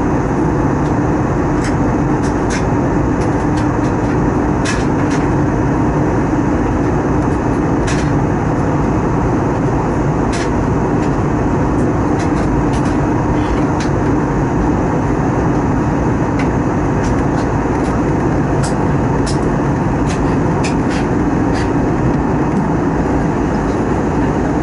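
Steady cabin noise of an Airbus A320neo in cruise, heard at a window seat beside its Pratt & Whitney geared turbofan: an even rush of airflow and engine noise with a steady low hum, and scattered faint ticks.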